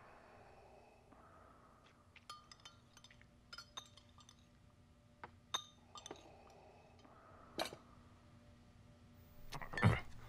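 Glasses and tableware clinking in a quiet room: scattered light clinks, some ringing briefly, over a faint steady hum, with a louder, duller noise near the end.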